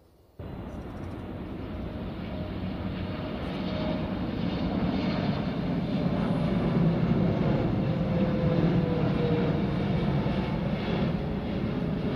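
Jet airliner passing overhead, its engine noise growing louder over the first several seconds, with a whine that drops in pitch as the aircraft goes by.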